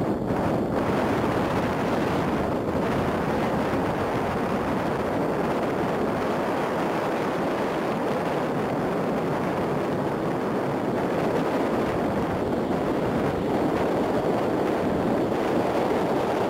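Airbus A380-800's four jet engines during its landing rollout, a steady, even rushing noise with no distinct whine.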